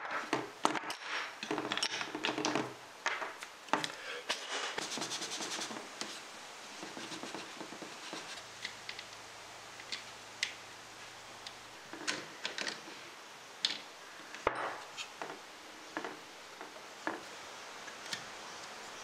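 Small brass and wooden parts being handled and fitted into a wooden case. Clinks, taps and scrapes come thick and fast for the first several seconds, then thin out to scattered light clicks.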